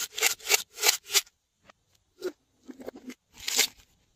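Hard plastic of a toy container scraping and rubbing as it is gripped and turned by hand: a quick run of scrapes about three a second, stopping about a second in, then a few scattered scrapes.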